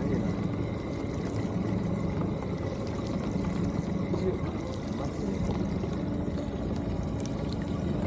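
A boat motor running steadily in neutral with a low hum, while water pours and trickles.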